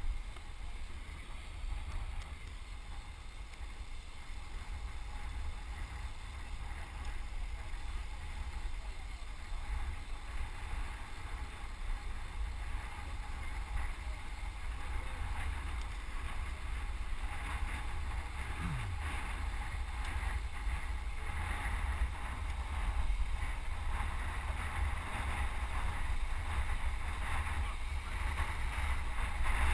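Wind buffeting a helmet-mounted camera's microphone on a moving road bike: a steady, gusting low rumble with a rushing hiss above it that grows a little louder in the second half.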